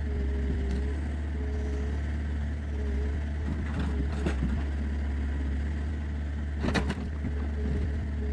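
Forestry forwarder's diesel engine running steadily with a deep drone, with two sharp knocks about four and seven seconds in.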